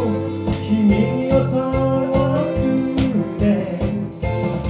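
Live band playing a song: guitar and bass over a steady drum beat, with a singer's voice.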